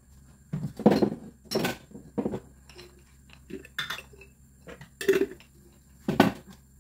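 Kitchen dishes and utensils clinking and clattering: about six separate knocks, spread out over several seconds.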